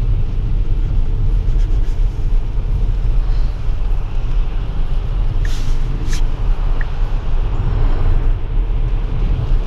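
Steady road and tyre noise heard inside a Tesla electric car's cabin as it drives along a rain-wet highway, with a couple of brief ticks about halfway through.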